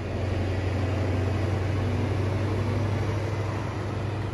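GWR Class 43 HST diesel power car passing close by and moving away along the platform: a loud, steady, deep engine drone over the rumble of the train.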